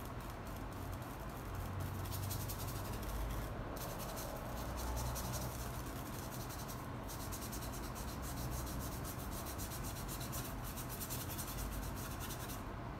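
Paintbrush stroking acrylic paint onto canvas: a run of quick brushing strokes that breaks off briefly twice, over a steady low hum.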